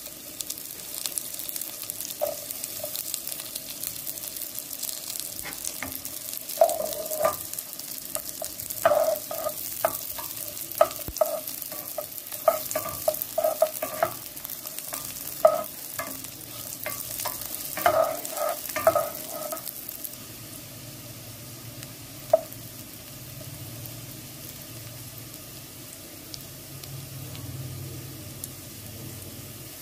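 Sliced garlic and ginger frying in sesame oil in a pan, a steady sizzle, with a string of short knocks against the pan through the first twenty seconds or so. The sizzle grows softer after that.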